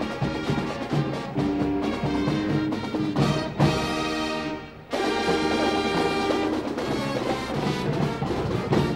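Marching band playing, its trumpets, mellophones, trombones and saxophones over drum strokes. A loud held chord fades out a little before halfway, and the full band comes back in straight after.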